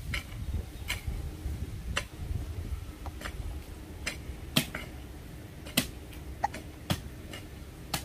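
Pickaxe striking hard, dry soil over and over, a sharp chink about once a second at an uneven pace, breaking ground for a house foundation. A low rumble underlies the first couple of seconds.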